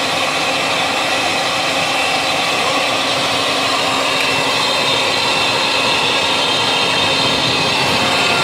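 Homemade model turbojet running steadily: an electric air blower serving as the compressor forces air through a gas-fed pipe combustion chamber, giving a steady whine over the continuous rush of the flame from the nozzle.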